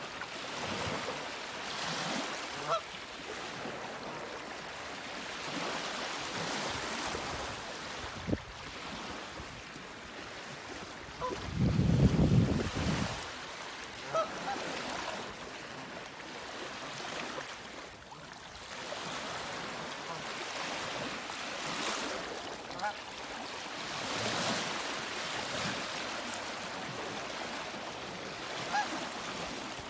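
Outdoor marsh ambience: a steady wind hiss on the phone's microphone, with a loud low buffet of wind about twelve seconds in. A few faint short calls from the mallards are scattered through.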